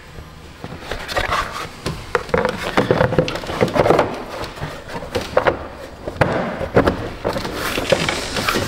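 Irregular clicks, knocks and rubbing of hard plastic as the air filter housing is worked into place by hand and its latches are pressed down over the edge.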